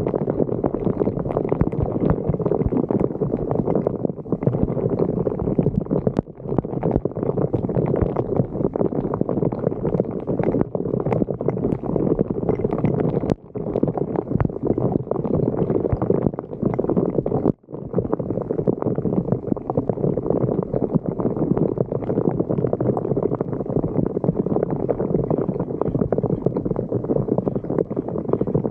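Floodwater gurgling and rushing into a blocked storm drain, a continuous rough churning with many small crackles.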